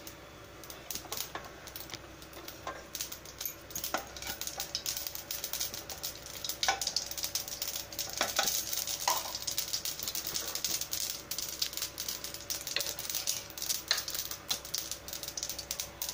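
Mustard seeds crackling and popping in hot oil in a nonstick kadai, with a light sizzle underneath: the seeds spluttering as they temper. The pops grow thicker and louder about six seconds in, and a spatula stirs through the oil.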